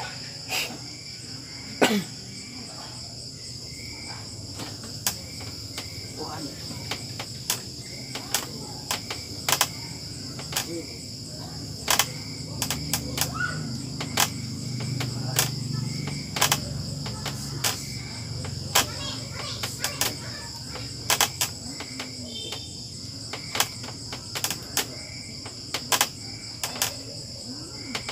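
Crickets chirping steadily, with many sharp clicks or taps scattered irregularly throughout and a low rumble that swells briefly in the middle.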